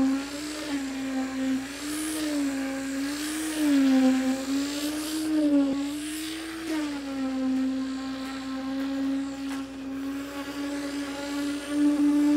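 Concrete pump truck running while pumping concrete: a steady mechanical drone whose pitch rises and falls every second or so with the pump strokes, then holds steady about seven seconds in.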